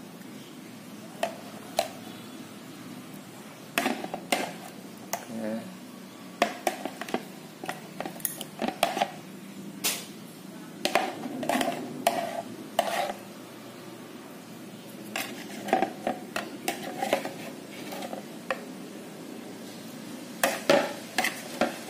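Stainless steel kitchen tongs clinking and tapping against a ceramic bowl and the metal spoon in it, in irregular bursts of short clicks with brief ringing, as battered tilapia fillets are turned.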